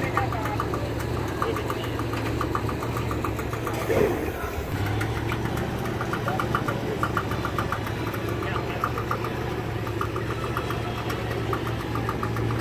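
Classic wooden runabout's inboard engine idling at the dock: a steady low drone with a fast regular ticking over it.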